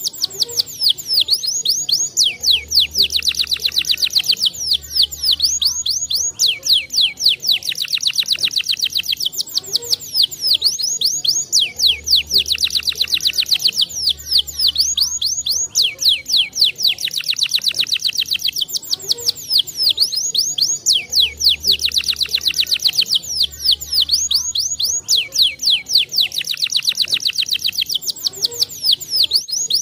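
Domestic canary singing: long rapid trills and rolls of quick downward-sweeping notes, broken by short pauses. The same song passage comes round again about every nine seconds, as in a looped training recording.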